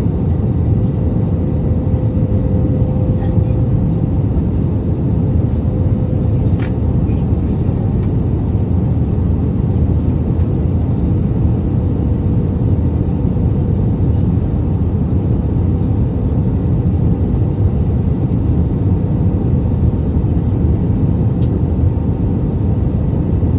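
Airbus A321 cabin noise: a steady, loud rumble of the engines and airflow with a constant hum, unchanging throughout.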